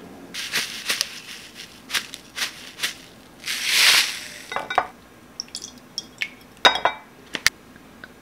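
Metal spoon clinking and tapping against a glass Pyrex measuring cup as marinade ingredients are spooned in, with a longer hissing pour of raw sugar from a plastic bag about three and a half seconds in.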